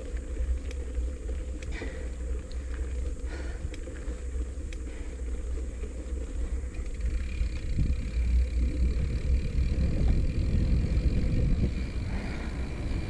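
Wind buffeting the microphone and tyre rumble from a bike rolling along a paved road, with a few light rattling clicks in the first half. The rumble grows louder for a few seconds past the middle.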